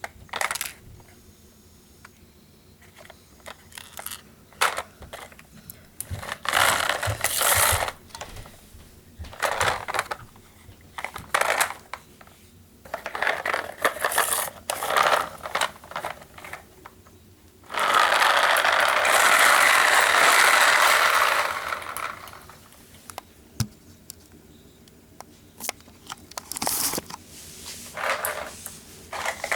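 Small plastic toy cars handled on a hard surface: scattered clicks, scrapes and rattles, with one steadier noise lasting about four seconds a little past the middle.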